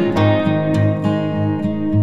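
Background music: a strummed acoustic guitar over a steady, even low beat.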